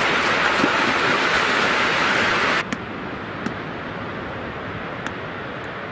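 Surf washing in at the water's edge, a loud steady rush that cuts off suddenly about two and a half seconds in. A quieter outdoor hiss with a few faint clicks follows.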